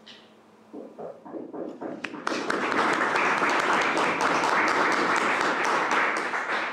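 Audience applauding: a few scattered claps about a second in, swelling into full, dense applause from about two seconds in and dying away near the end.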